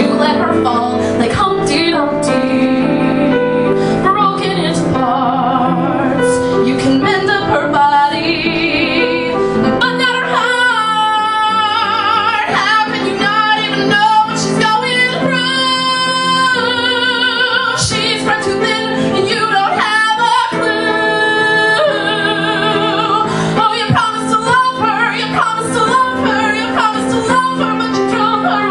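A woman singing a song over instrumental accompaniment, holding several notes with a wavering vibrato.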